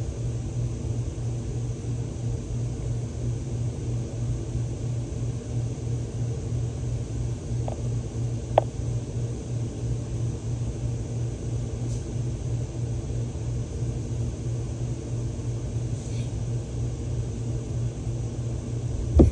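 Steady low rumbling hum with a fast, even flutter. One short click about eight and a half seconds in.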